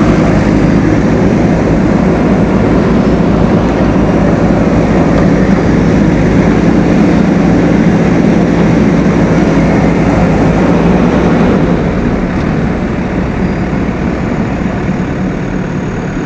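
Heavy machine's diesel engine running loud and steady, growing quieter about twelve seconds in.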